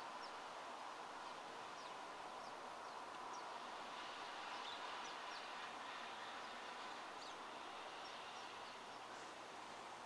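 Small songbirds chirping faintly: many short, high chirps scattered throughout, over a steady background hiss.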